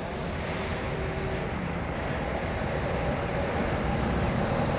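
A steady low engine rumble that grows slightly louder.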